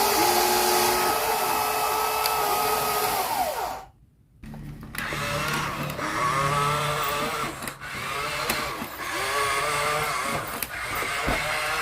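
Small electric motors of remote-control construction models whining, several tones at once. The whine glides down and stops about four seconds in, then resumes with a pitch that dips and rises over and over as the motors work under changing load.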